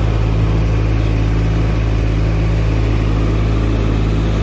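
Tractor engine running steadily, a constant low hum.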